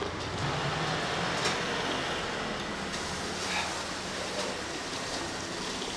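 Steady road traffic noise, with a vehicle's engine humming low as it passes along the street.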